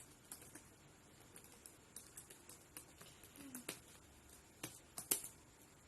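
Computer keyboard typing: irregular, separate key clicks, with a louder keystroke about five seconds in.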